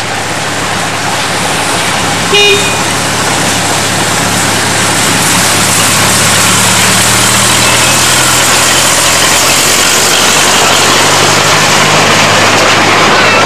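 A 600 mm narrow-gauge diesel locomotive approaches and passes, its engine a steady low drone. It gives one short horn toot about two and a half seconds in.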